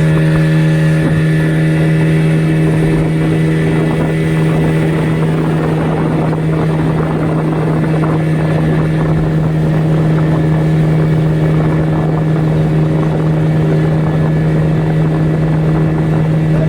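Speedboat engine running at a steady cruising speed, a constant drone over a rushing noise.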